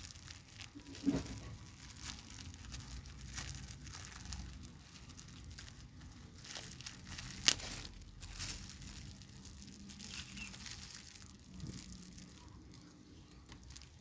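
Clear plastic packed with soil crinkling as hands press and shape it around a branch for an air layer. A soft knock comes about a second in and a sharp click about seven and a half seconds in.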